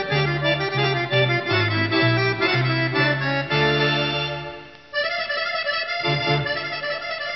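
Instrumental accordion music in a fado style, a melody over sustained chords; about four seconds in a held chord fades out, and a new phrase starts about a second later.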